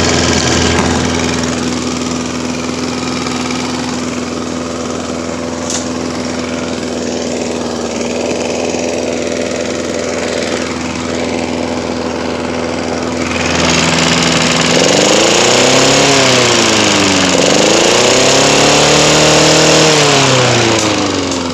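Hecht DG450 petrol lawn mower's 135 cc engine running steadily just after a pull start. About two-thirds of the way through it gets louder and its speed rises and falls twice.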